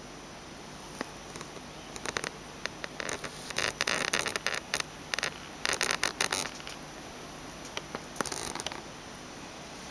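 Bursts of close rustling and scratching clicks, thickest from about three to six and a half seconds in and again briefly near the end, over a steady faint hiss.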